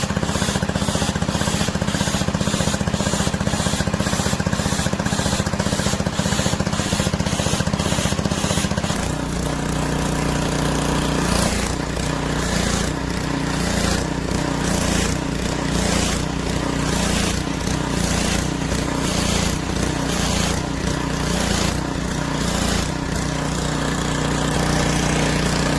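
A 2300 PSI pressure washer running with water spraying, the sound pulsing about twice a second; about nine seconds in its steady low note drops and changes. The pulsing goes with the fluctuating pressure that the owner puts down to something wrong with the valve.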